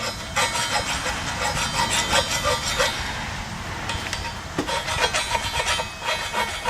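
Hand file scraping in quick repeated strokes across the edge of a stainless steel gear, rounding the edge, with a short lull about halfway through.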